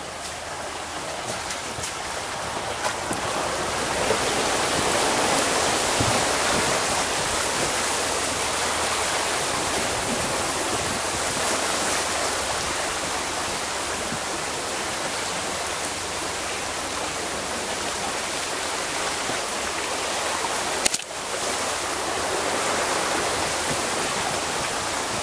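Steady rush and churn of muddy water pushed aside by a Range Rover L405 wading through deep water, building over the first few seconds. A single knock about 21 seconds in.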